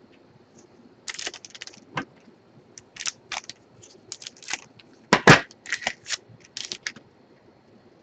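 Irregular crinkling and snapping of a trading-card pack's wrapper and cards being handled, starting about a second in and stopping shortly before the end, loudest a little past the middle.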